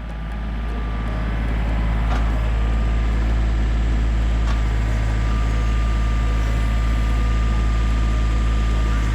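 Compact tractor's diesel engine running steadily with a deep, even rumble, swelling over the first second and then holding constant.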